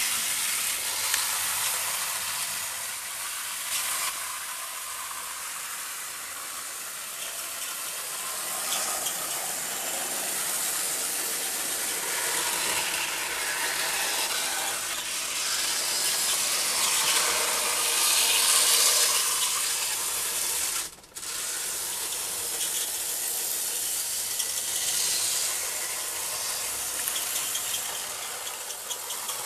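A 009 narrow-gauge model locomotive running with its three coaches: the steady whirr of its small electric motor and gears, with rattling wheels on the track. The sound drops out for a moment about two-thirds of the way through.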